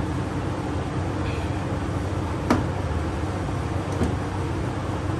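Steady low mechanical hum, with two sharp metallic clinks, one about two and a half seconds in and a fainter one near four seconds, from a wrench working on a very tight bolt.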